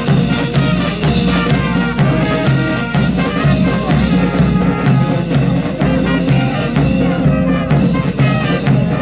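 Military brass band playing a march, horns over a steady drum beat.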